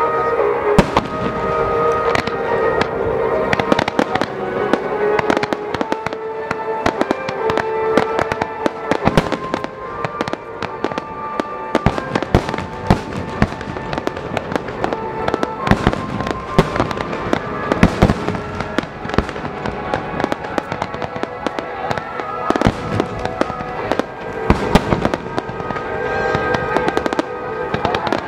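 A fireworks finale: aerial shells and fireworks launched from the water's surface bursting in rapid, continuous succession, many sharp bangs and crackles, with music playing underneath.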